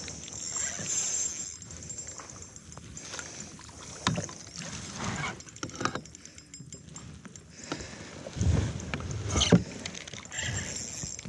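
Water splashing and sloshing around a fishing kayak, with irregular knocks against the hull, the loudest near the end.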